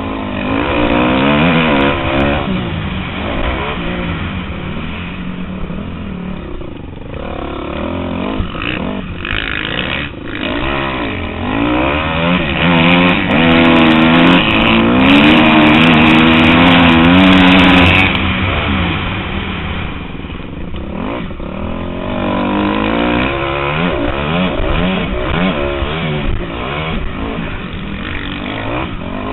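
Motocross bike engine heard from a helmet-mounted camera, revving up and falling off again and again as the rider races through the track. The longest and loudest hard pull comes from about 13 to 18 seconds in.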